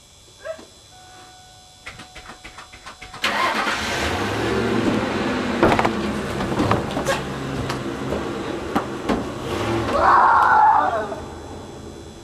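A vehicle engine starting. A quick run of cranking ticks lasts about a second, then the engine catches and runs with uneven revving before easing off near the end.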